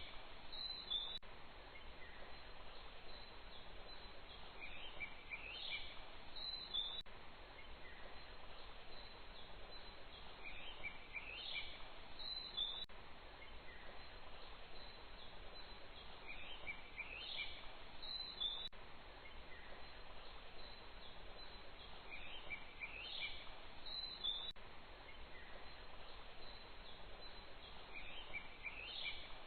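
A short bird call phrase of quick rising chirps, repeated the same way about every six seconds over a steady hiss of outdoor ambience. A faint click follows each call.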